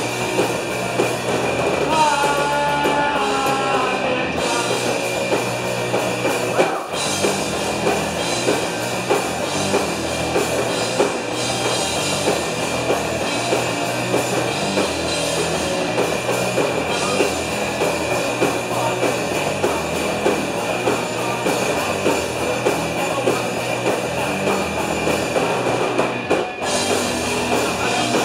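Punk band playing live: electric guitars and drum kit in a fast, loud rock song, with two brief breaks in the playing, one about seven seconds in and one near the end.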